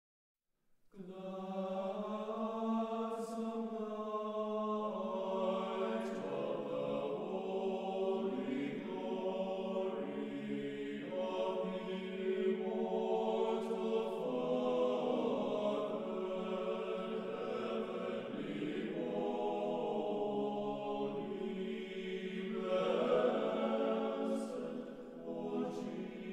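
A choir singing Orthodox church chant over a steady held low drone note. It starts about a second in, with the upper voices moving from note to note above the drone.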